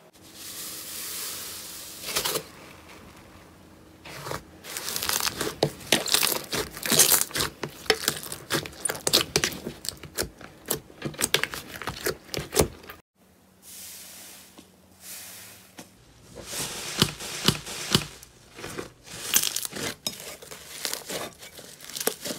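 Slime being squeezed and stretched by hand, making dense crackling and popping with many sharp clicks. It breaks off briefly about thirteen seconds in, then starts again.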